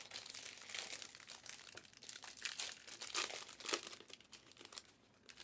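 Trading-card pack wrappers being torn open and crinkled in the hands: a dense run of crackling and ripping that thins out about four seconds in.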